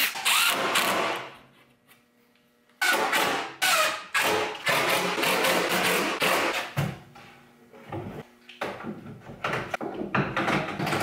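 Cordless drill driving screws into plywood, running in short bursts. Its whine stops about a second in, and after a short pause it starts again in repeated bursts, with knocks of wood and tools between.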